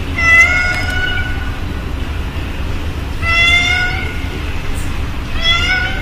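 A tabby cat meowing three times, each a drawn-out meow of about a second, spaced two to three seconds apart, the last one starting near the end.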